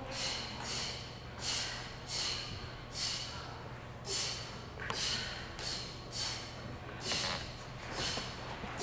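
Short, sharp exhalations from a martial arts student performing a form, one hissed breath with each strike or block, about one or two a second.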